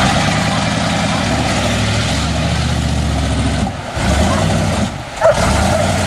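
GMC pickup's 400 small-block V8 running steadily, with two brief drops in level about four and five seconds in.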